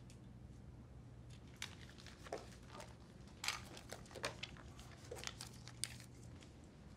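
Small paper ballot slips being handled and folded, a light scattered rustling and crinkling with a few small clicks and taps, over a faint steady hum.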